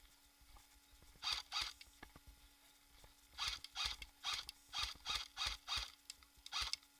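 Footsteps crunching through dry ground cover, a short rustling crunch about twice a second in a walking rhythm, with a pause after the first two steps. A faint steady hum lies under it.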